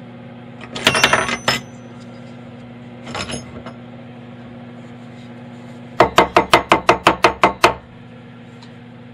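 Metallic clinks and knocks from handling a machined part and its fixture: a cluster of ringing clinks about a second in, a small clink a little later, then a quick even run of about a dozen sharp taps, roughly seven a second, over a low steady hum.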